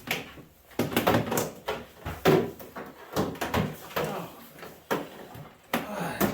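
Old microwave oven's sheet-metal cabinet knocking and clunking as it is shifted about and tipped onto its side, with a run of irregular short knocks.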